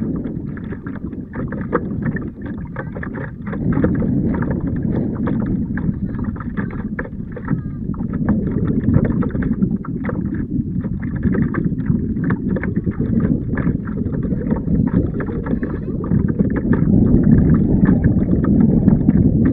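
Water splashing and lapping against the hull of a moving Hobie Compass Duo kayak, with wind buffeting the microphone. The sound is steady and a little louder toward the end.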